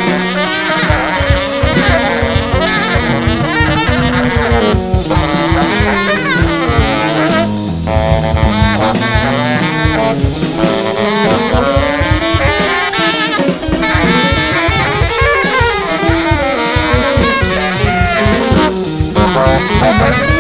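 Live jazz trio improvising: a tenor saxophone plays quick, winding lines over a baritone electric guitar and a busy drum kit.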